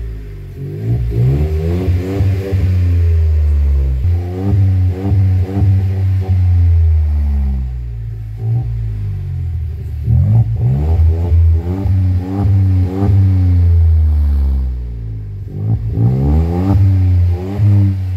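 Skoda Rapid TSI's turbo petrol engine breathing through free-flow pipes and an HKS exhaust muffler, revved in repeated blips, the pitch climbing and falling back, with a steady idle between the revs.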